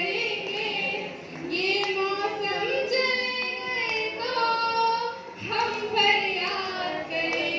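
A woman singing solo into a microphone without accompaniment, in long held notes with wavering pitch and a couple of short breaks for breath.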